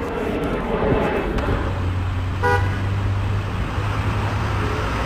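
Car running along the road, a steady engine and road rumble, with a single short car-horn toot about halfway through.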